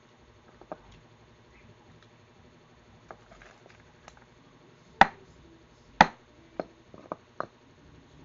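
Eating utensils knocking against tableware during a meal: a few faint clicks, then two loud knocks about a second apart, then several quicker, lighter knocks near the end.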